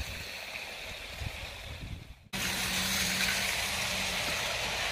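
Bachmann GWR Manor model steam locomotive and its coaches running past on OO gauge track: a steady hiss of wheels on rail with a low motor hum that fades about four seconds in. The sound drops out briefly just over two seconds in and comes back louder.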